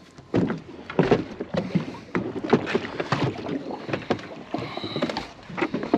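Irregular knocks and thumps of a freshly caught speckled trout being handled and put away aboard a small fishing boat, a few knocks a second with a light hiss between them.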